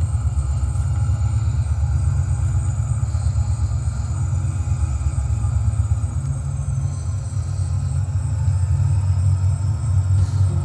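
HO scale BC Rail diesel locomotives rolling past with a train, giving a steady low rumble.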